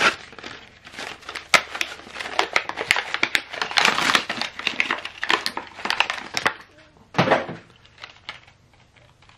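Cardboard-backed plastic blister pack being torn and pried open by hand: a dense run of ripping card and crinkling, crackling plastic, with one last loud crackle just after 7 seconds before it stops.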